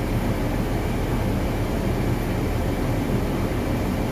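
John Deere 8300 tractor's six-cylinder diesel running steadily under load, a continuous low drone heard from inside the cab.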